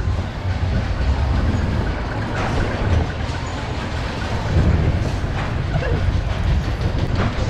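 Reverchon spinning wild-mouse coaster car rolling along its steel track: a steady low rumble from the wheels, broken by a few sharper rattles and clacks.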